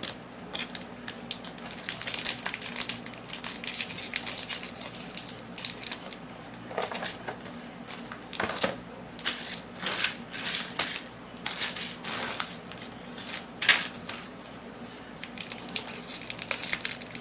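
Plastic snack wrapper crinkling and being torn open: a long run of irregular crackles, with one sharper crack late on.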